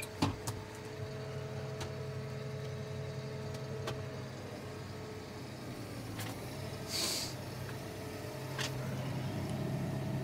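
New Holland tractor engine running steadily while pulling a reversible plough, heard from inside the cab. A few light clicks and a brief hiss about seven seconds in.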